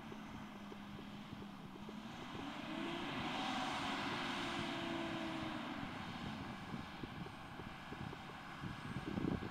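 Fendt tractor engine pulling a loaded manure spreader: the engine note rises and gets louder about two seconds in, holds, then eases back around six seconds. Wind buffets the microphone throughout.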